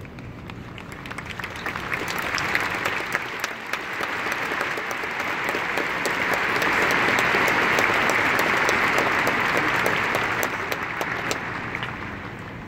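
A large crowd applauding, swelling over the first couple of seconds, holding strong, then dying away near the end.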